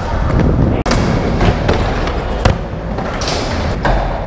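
Skateboard wheels rolling with a steady rumble, broken by several sharp clacks and thuds of boards hitting the surface. The sound cuts out for an instant about a second in.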